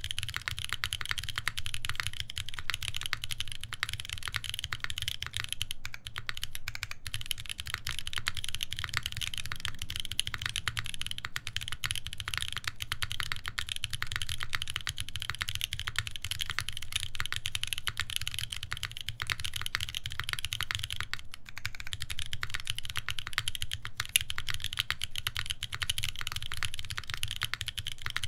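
Continuous fast typing on a UNIKORN R2.1 custom mechanical keyboard with lubed Boba U4T tactile switches, an FR-4 plate and GMK keycaps: a dense run of keystroke clacks with a low thock under each press, broken by a couple of brief pauses.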